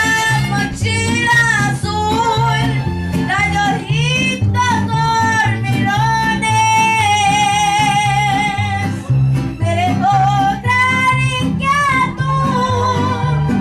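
Music: a high child's voice singing a Latin song with vibrato over guitar and a repeating bass line.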